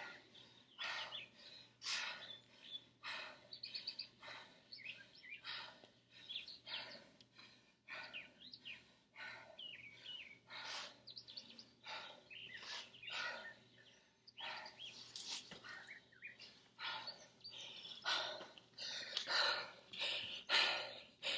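Small birds chirping over and over in quick, short calls.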